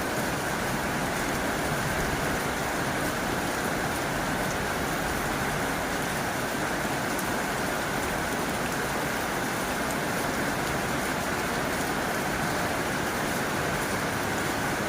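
Heavy rain falling steadily on a tin roof, an even, unbroken rush of drops.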